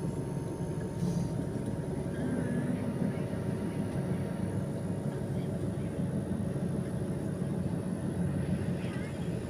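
Steady low drone of a running engine, even throughout, with faint voices in the background.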